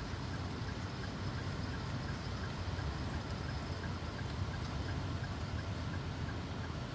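Steady low rumble of a car heard from inside the cabin, engine and road noise while creeping along in traffic.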